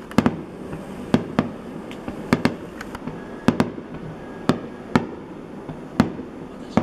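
Aerial firework shells bursting in a rapid-fire sequence: about a dozen sharp bangs, roughly one or two a second, some in quick pairs.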